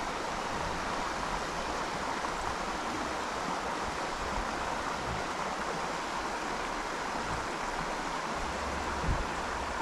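Fast-flowing mountain river rushing steadily.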